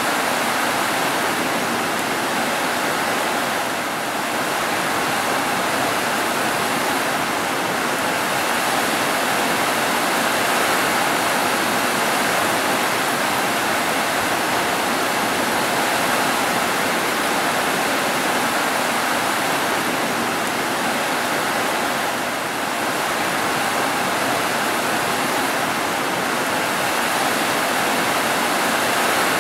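Heavy rain falling steadily, a dense even hiss with no thunder or distinct drops standing out.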